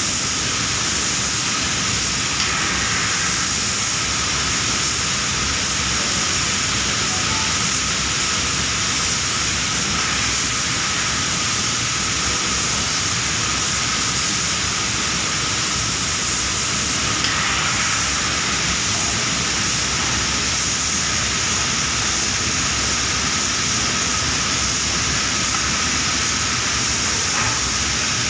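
Compressed-air spray gun hissing steadily as it sprays a clear lacquer coat.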